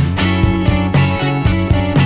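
Background music: an upbeat guitar-led track with a steady beat.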